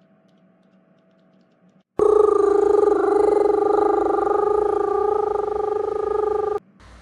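A fire alarm, just pulled, rings out suddenly about two seconds in: a loud, steady buzzing ring that cuts off abruptly about four and a half seconds later.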